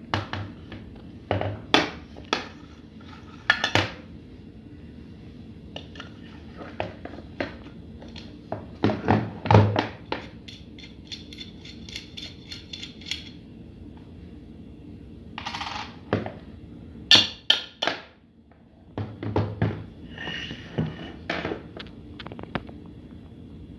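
Aluminium pressure cooker lid being handled and turned over on a table, its rubber gasket pulled off: a string of irregular metal knocks, clinks and clicks, the loudest about nine and seventeen seconds in.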